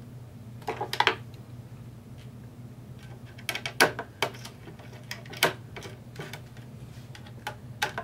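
Light, irregular clicks and taps of hands and a small tool working at the screws and copper heatsink of a laptop motherboard, in short clusters about a second in and around the middle, over a steady low hum.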